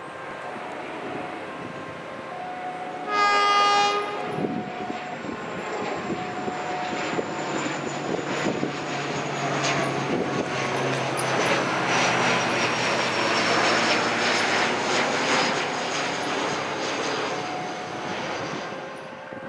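A train horn gives one short blast about three seconds in. Then a train runs past with its wheels clattering over the rail joints and a low engine drone under the clatter; it grows louder through the middle and fades near the end.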